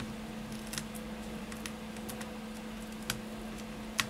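A few sharp, separate clicks of a small metal tool against a tablet's plastic frame while old adhesive tape is picked from its edge, the loudest near the end, over a steady low hum.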